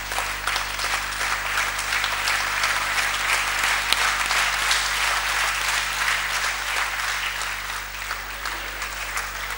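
Audience applauding: many hands clapping in a steady, dense run that eases slightly near the end.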